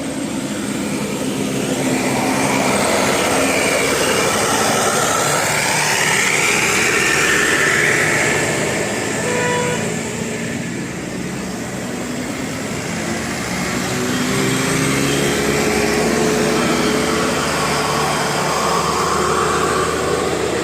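Heavy road vehicles, most likely large buses, driving past: engine and tyre noise swelling and fading twice as each one goes by.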